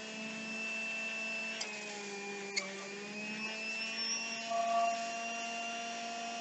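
Electric juicer's motor running steadily with a whine. Its pitch dips briefly about two to three seconds in, with two light knocks around then.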